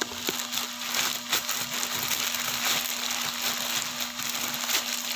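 Crinkling, rustling and small clicks of a parcel's packaging being handled and opened.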